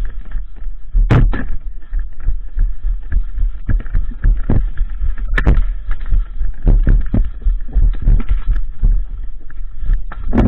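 Heavy low rumble and buffeting on a helmet-mounted action camera's microphone, with irregular knocks, clicks and rustles from the camera and its wearer moving about.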